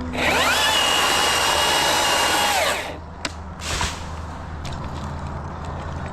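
Chainsaw spinning up with a rising whine, cutting steadily for about two and a half seconds as a small stub of branch is taken off, then winding down. A sharp knock and a short thud follow about a second later.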